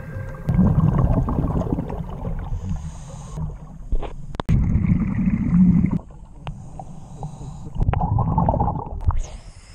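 Muffled underwater gurgling and low rumble from scuba diving, coming and going in bursts like a diver's exhaled bubbles, with a few faint clicks. Near the end the sound changes as the camera nears the surface.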